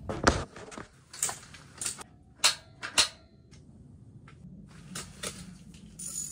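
Scattered sharp clicks and light knocks, about eight spread over five seconds, from small fishing tackle being handled.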